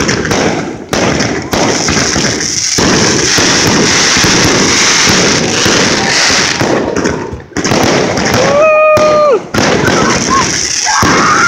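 Consumer aerial fireworks firing at close range: a dense, continuous crackle of shots and bursting stars with many sharp pops. There are short lulls about two and a half and seven and a half seconds in.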